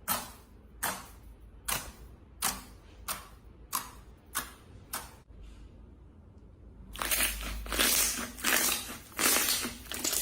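Slime being pressed and squeezed: sharp clicking pops at an even pace, about every two-thirds of a second, for the first five seconds. From about seven seconds in comes a louder, denser crackling and crunching.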